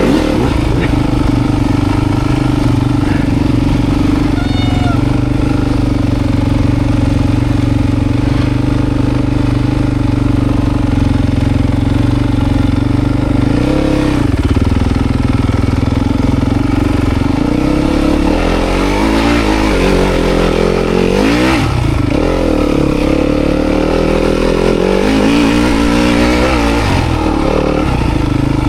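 Dirt bike engine running steadily, then revved up and down repeatedly from a little past halfway.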